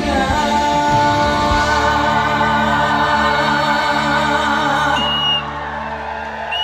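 The end of a trot song played live through stage speakers: a sung note is held for about a second and a half over the backing track, then the closing chord sustains and drops in level about five seconds in.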